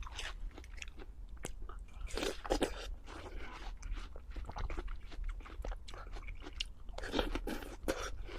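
Close-miked crunching and chewing: a person biting into and chewing crisp food or ice, with bursts of crackling. The loudest bites come about two and a half seconds in and again about seven seconds in.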